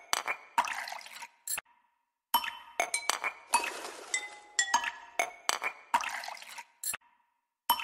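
Background music: bright, glassy clinking tones in a short phrase that repeats about every five seconds, each time broken by half a second of complete silence.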